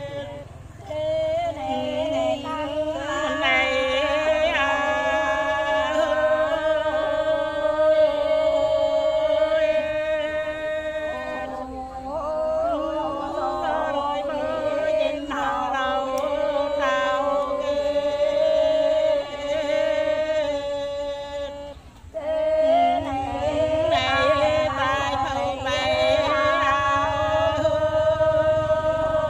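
Several voices singing or chanting together over a steadily held note, with a short pause about 22 seconds in.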